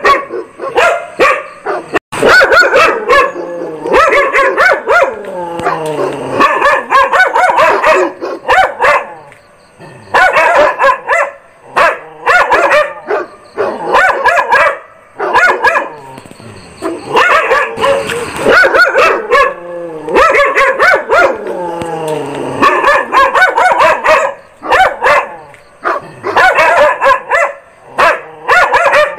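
Dog barking loudly and repeatedly in fast runs of barks, with a couple of short pauses between runs.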